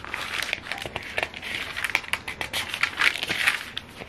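Thin pages of a thick paperback anthology being flipped through by hand: a quick, uneven run of papery rustles and flicks, with louder swishes as bunches of pages turn over.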